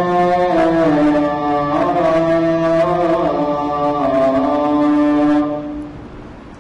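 Melodic chanting by a single voice, holding long notes that slide from one pitch to the next over a steady low tone. The phrase fades out about five and a half seconds in.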